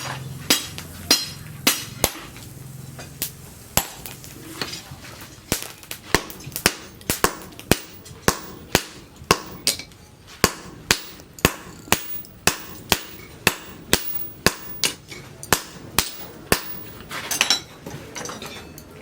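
Blacksmith's hammer striking metal on an anvil during axe forging: a steady run of sharp blows, about two a second.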